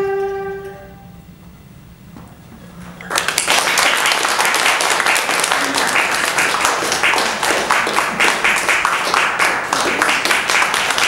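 A Chinese string ensemble's final held note fades out within the first second. After about two seconds of near quiet, the audience breaks into loud, sustained applause.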